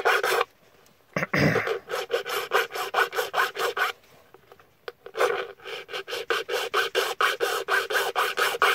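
A hand file rasping across a key blank in quick back-and-forth strokes, about three to four a second, cutting the key's notches by hand. The filing pauses twice.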